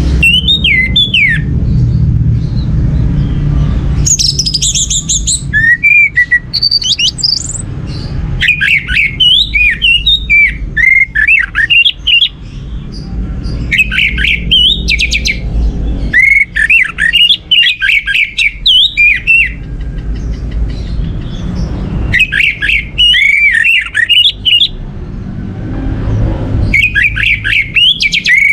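Orange-headed thrush (anis merah) singing in repeated bursts of quick, varied, swooping whistled phrases, each a few seconds long with short pauses between, over a steady low rumble.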